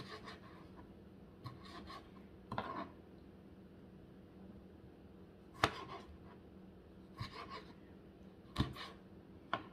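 Kitchen knife cutting small fresh tomatoes on a plastic cutting board: about seven short, irregular taps of the blade on the board, the loudest just past halfway and near the end.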